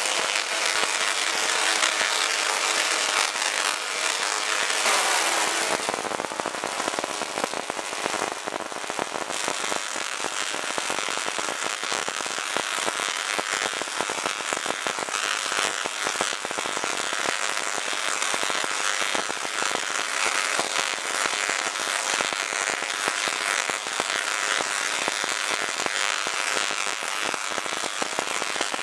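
Home-built Tesla coil throwing long sparks into the air, a loud, dense crackle of rapid snapping discharges that keeps going throughout; about five seconds in the sound shifts slightly.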